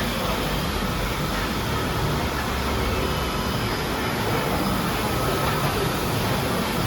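Steady low rumble and hiss of building machinery, with no distinct events.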